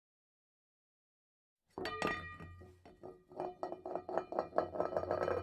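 A utensil clinking and knocking against a bowl in repeated strokes, starting suddenly almost two seconds in and quickening to about six strokes a second, as when mixing batter.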